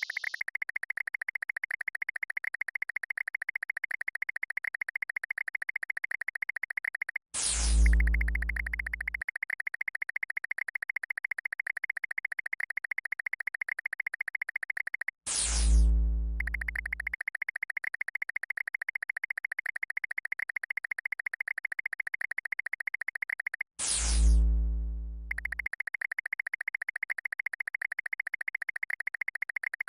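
Synthesized electronic sound effects: a rapid, high buzzing chirp, broken three times, about every eight seconds, by a zap that drops steeply in pitch into a deep boom.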